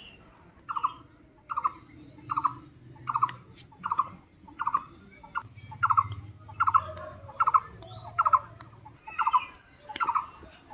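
A bird calling a short, pulsed note over and over, about once every three-quarters of a second, with a faint low hum underneath in the middle.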